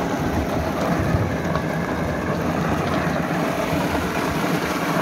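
Meltem M-60 walnut hulling machine running steadily: its electric motor turns the saw-lined drum that churns walnuts to strip their green husks, with water running through the drum.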